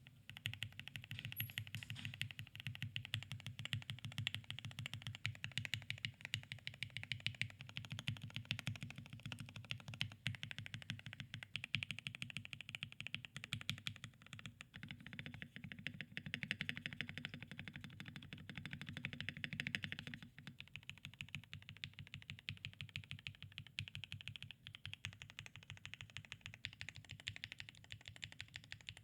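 Fast typing on a custom 65% mechanical keyboard in an aluminium case, with Alpaca linear switches lubed with Krytox 205g0 and filmed, and ABS doubleshot keycaps: a dense, continuous run of keystroke clacks with a brief lull about twenty seconds in.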